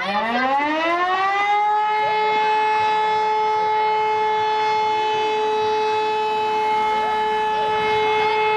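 Civil defence siren winding up, its pitch rising over about a second and a half, then holding one steady, loud wail.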